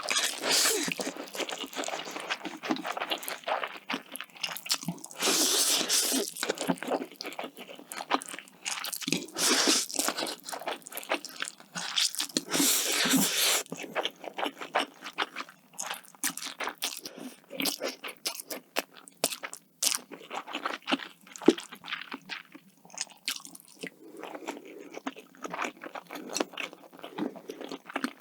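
Close-miked eating: several loud crunching bites in the first half, each lasting about a second, then steady chewing with many small clicks.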